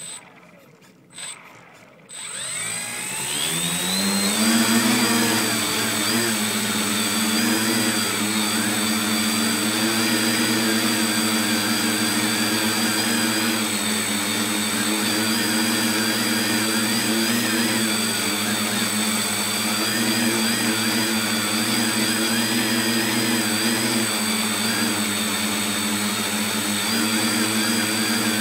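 Brushless electric motors and propellers of an RC tricopter, heard from a phone mounted on the craft. After two short beeps, the motors spin up over about two seconds, rising in pitch, then run at a steady high whine in flight, the pitch wavering slightly with throttle changes.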